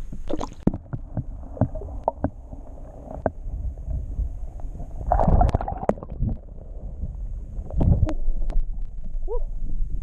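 Water splashing and gurgling around an action camera dipped below the lake surface while a largemouth bass is lowered back into the water from a kayak, with many sharp knocks and clicks from handling. The loudest splashing comes about five seconds in, with another burst near eight seconds.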